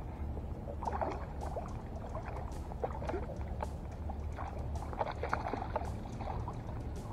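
Water splashing and sloshing beside a float tube as a hooked spotted bay bass thrashes at the surface during the fight. The splashes come as irregular short bursts over a steady low rumble.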